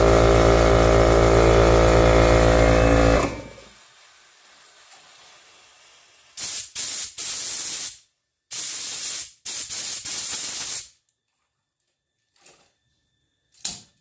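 Mastercraft 8-gallon air compressor's motor and pump running steadily, then stopping abruptly about three seconds in. Later, about five short blasts of hissing air from a blow gun on the coiled hose, followed by a single click near the end.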